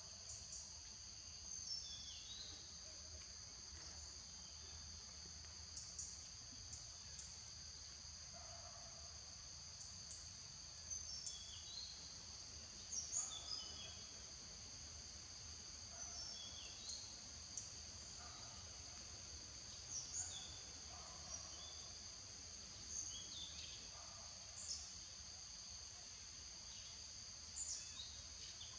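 Insects droning steadily at a high pitch, with short bird chirps scattered through it every second or two.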